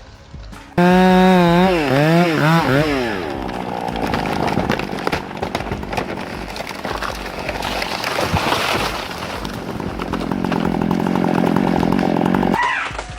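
Two-stroke chainsaw, starting abruptly about a second in with its engine pitch swinging down and up several times as the throttle is worked. It then runs on steadily with sawing noise and cuts off suddenly shortly before the end.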